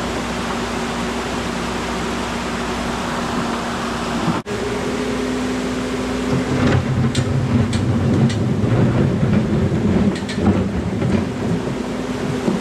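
Diesel engine and hydraulics of a Menzi Muck spider excavator running steadily. From about six and a half seconds in it works harder, with rocks grinding and knocking several times as the bucket moves stones.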